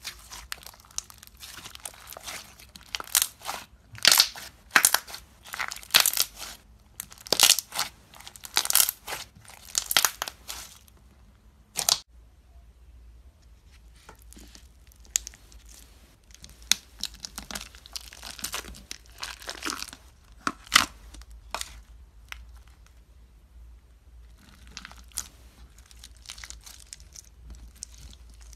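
Crunchy slime being squeezed and pressed by hand. First, a foam-bead (floam) slime gives a dense run of sharp crackles and pops. After an abrupt change about 12 seconds in, a clear slime packed with plastic pony beads gives fainter, scattered crackles and clicks.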